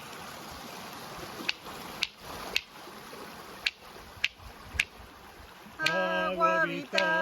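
Running water, a steady wash with six sharp clicks in two groups of three, about half a second apart. Near the end a voice starts singing long held notes.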